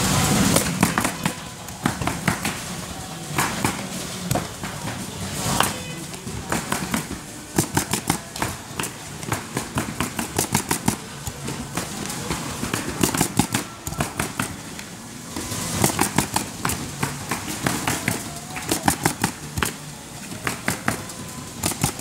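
Pneumatic coil roofing nailer firing in quick runs of sharp shots, a few per second, driving nails through asphalt shingles. There are short pauses between the runs as each shingle is placed.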